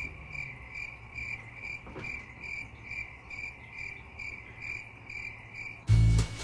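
Cricket chirping: a clean high chirp repeated evenly about twice a second, starting and stopping abruptly. Near the end it is cut off by a brief, loud deep bass sound.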